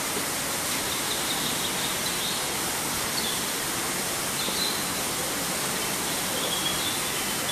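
A steady rushing hiss, like running water, with a few faint, short high chirps scattered through it.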